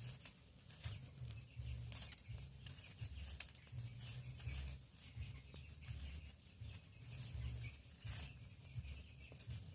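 Crickets chirping in a steady, evenly pulsed trill, with scattered faint clicks and a low rumble that comes and goes.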